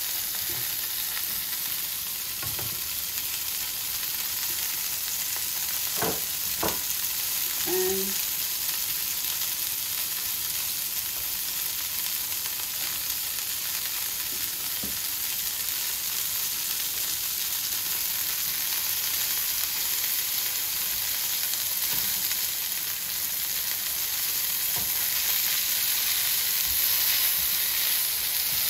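Potato chips and chicken burger patties frying in hot oil in two pans on a gas hob: a steady sizzle, with a few short clicks of a utensil about six to eight seconds in.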